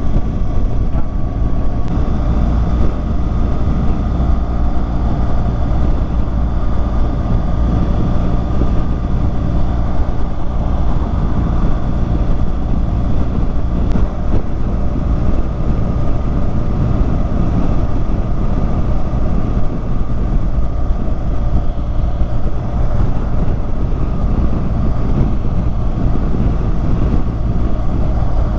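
A motorcycle on the move: steady engine and road noise with wind rushing over the microphone.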